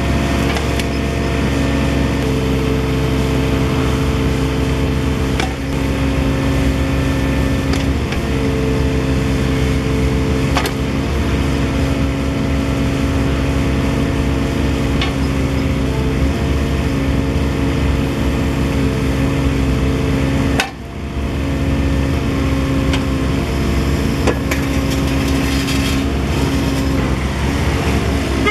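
Diesel engine of a Bobcat 323J mini excavator running steadily, with a few short knocks and a brief dip in level about two-thirds of the way in.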